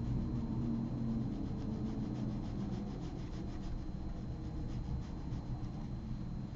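Soft rubbing of a liner brush and the painter's hand moving on watercolor paper, with faint scratchy strokes in the first few seconds, over a steady low hum.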